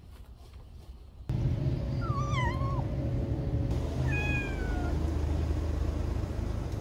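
A cat meowing twice in a high pitch: first a short wavering meow, then a longer, slowly falling one, over a steady low rumble that comes in about a second in.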